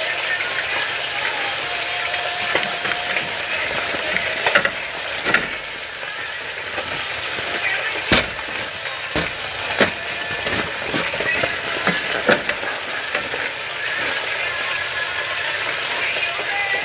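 Aluminium foil and paper being handled: crackling and rustling, with several sharp knocks.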